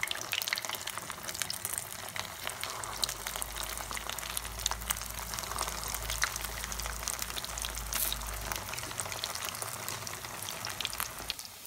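Potato-filled bread rolls deep-frying in hot refined oil in a pan: a steady sizzle thick with fine crackles and pops. It cuts off near the end.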